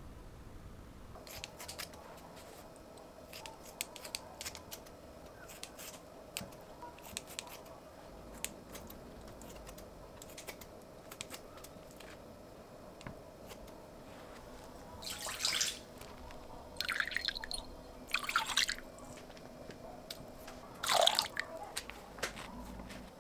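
Kitchen shears snipping raw chicken into pieces, a long run of sharp clicks. Then liquid seasonings are poured into a glass mixing bowl in a few short runs, and there is a louder brief scrape near the end as chili powder is spooned in.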